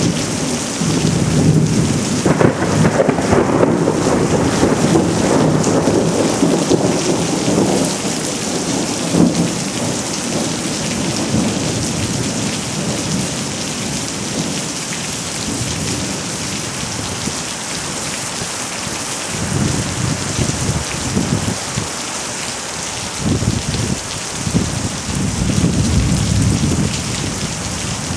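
Heavy rain pouring steadily in a severe thunderstorm, with long rolls of thunder rumbling in the first several seconds and again building near the end.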